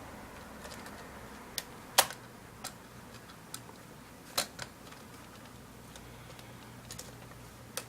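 Scattered small, sharp clicks and taps of plastic parts and a screwdriver as a laptop keyboard is pressed into place and screwed in, the loudest about two seconds in and again a little after four seconds.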